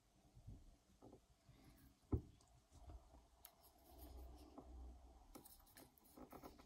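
Near silence with faint handling noise as a wristwatch and its leather strap are turned over in the hand: soft rustles and light clicks, with one sharper knock about two seconds in.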